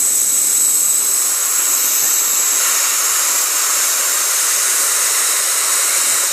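Steady hiss of air being blown into a dead deer's lungs through its trachea. Part of the air leaks back out past a hole in the trachea that is too big.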